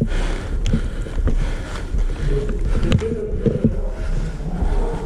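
Movement and handling noise of a player's gear: irregular knocks and clicks, about half a dozen, over a steady low rumble.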